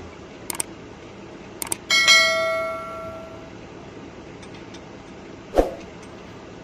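Subscribe-button animation sound effect: two quick double clicks, then a bell chime that rings out and fades over about a second and a half. A steady machine hum from the Caterpillar excavator runs underneath, and a single thump comes near the end.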